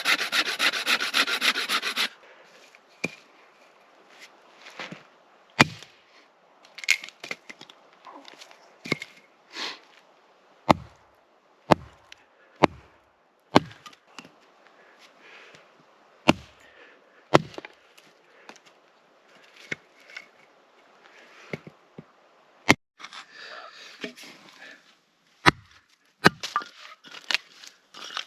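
Hand saw cutting through a branch in rapid, even strokes, stopping about two seconds in. After that come scattered sharp knocks and thuds of wood being broken and handled, about a dozen spread through, with quieter rubbing and scraping between them.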